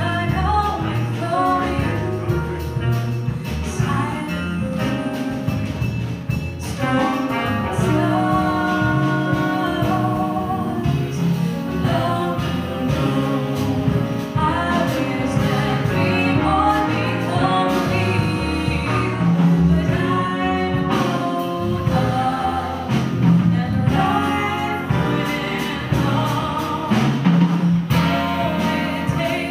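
Live small jazz-soul band playing: a woman sings lead over saxophones, trombone, piano, bass and drums.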